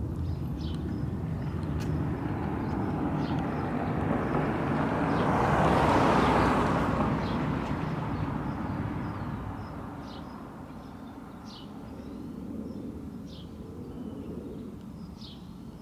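Jet aircraft flying past, its roar swelling to a peak about six seconds in and then fading away as it departs.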